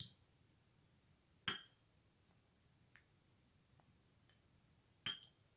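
Plastic spoon clicking against a small glass bowl while a thick henna and turmeric paste is stirred: three sharp clicks, at the start, about a second and a half in and near the end, with faint ticks between.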